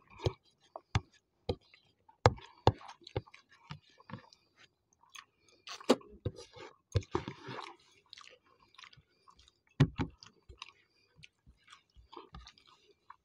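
Two people chewing mouthfuls of rice and egg curry close to the microphone: irregular wet smacks and clicks of lips and mouths, with the loudest smacks about two, six and ten seconds in.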